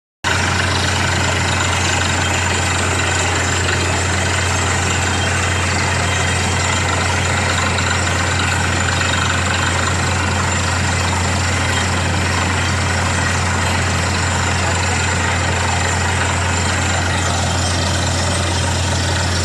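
Borewell drilling rig's engine running steadily: a loud, constant low hum under an even, unbroken noise.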